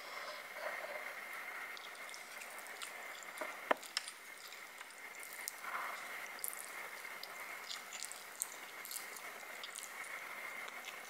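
Wet mouth sounds of a person eating chewy stir-fried instant noodles with chopsticks: sticky, squishy chewing and slurping with scattered small clicks, the sharpest a little under four seconds in. Under it runs a steady hiss with a faint high tone.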